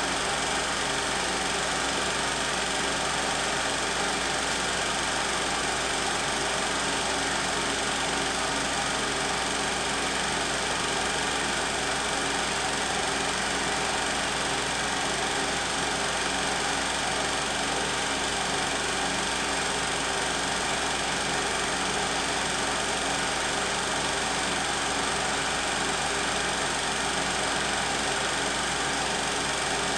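16mm film projector running steadily: an even mechanical whirr.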